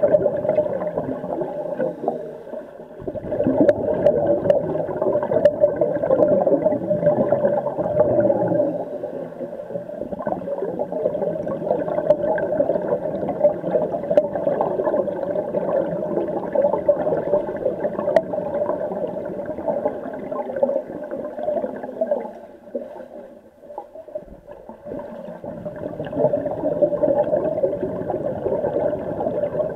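Muffled underwater gurgling and rushing from scuba divers' exhaled regulator bubbles, heard from below the surface of a pool, over a steady hum. It eases off briefly twice.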